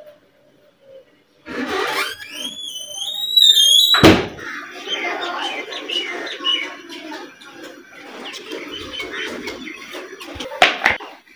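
A squeaky door hinge squeals, rising in pitch, for about two seconds, then the door bangs shut. Scattered knocks and handling noise follow.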